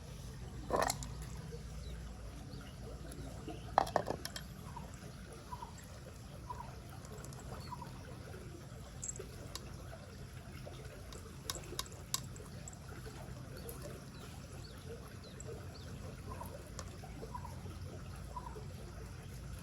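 Rushing river water, a steady low rush, with a few sharp clicks: one about a second in, a quick cluster around four seconds, and a couple more near twelve seconds.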